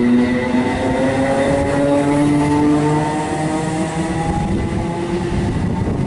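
Greater Anglia Class 317 electric multiple unit accelerating away, its traction whine of several tones rising slowly in pitch over the rumble of the wheels on the rails.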